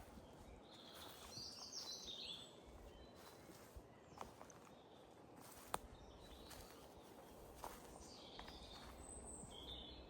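Near silence: faint high bird chirps about a second in and again near the end, with a few light clicks or snaps, the sharpest a little past halfway.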